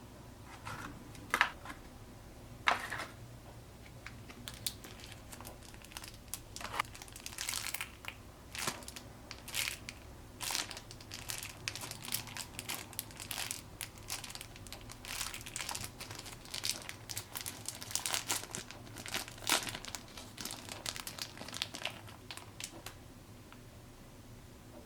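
Packaging of a squishy mochi toy crinkling and rustling in irregular crackles as it is handled and opened by hand.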